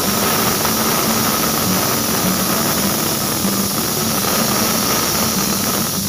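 Pressure cooker whistle: steam jetting out under the weighted vent valve of an aluminium pressure cooker in a loud, steady hiss with a thin whistling tone, releasing the pressure built up inside.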